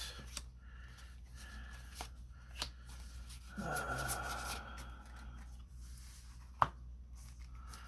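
Trading cards being handled and slid against each other, giving soft rustles and light clicks, with one sharper click near the end.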